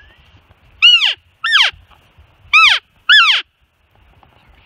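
Four short elk cow mews, each a loud call that drops steeply in pitch. They come in two pairs, the second pair about a second and a half after the first.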